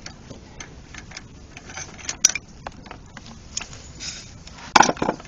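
Irregular small metal clicks and clinks from a socket, with a screwdriver through its end, being turned by hand to unscrew a cracked-loose head bolt on a single-cylinder engine. There is a sharper clack about two seconds in and a short cluster of louder knocks near the end.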